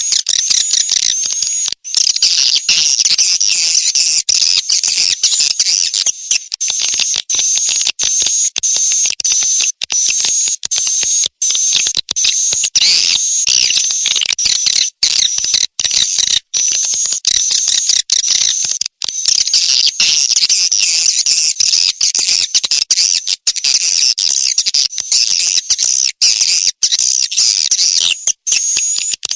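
Swiftlet chick-call lure sound: a dense, continuous twittering of many high-pitched chirps, broken by many very brief gaps. It is a call played to draw swiftlets into a bird house.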